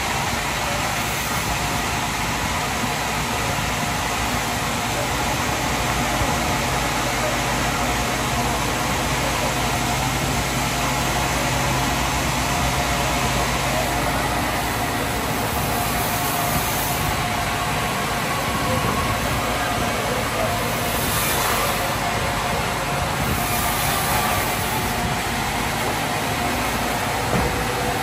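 Sawmill machinery running steadily: a constant mechanical drone with a few faint steady tones through it.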